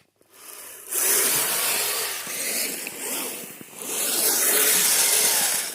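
Radio-controlled tracked snow vehicles (Kyosho Blizzard) driving through snow: the tracks churning and scraping the snow with a rough hiss that swells and fades, dipping briefly a little past the middle.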